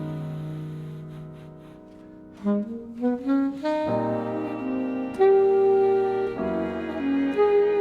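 Alto saxophone with a small string section and piano: a low held string chord fades away, then the saxophone climbs in a short run of rising notes and settles into long held notes over sustained strings.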